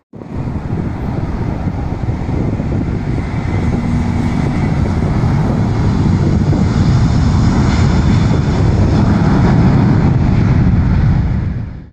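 Jet engines of a twin-engine widebody airliner running at high power on the runway: a deep rumble that grows louder, with a high whine coming in over it in the second half.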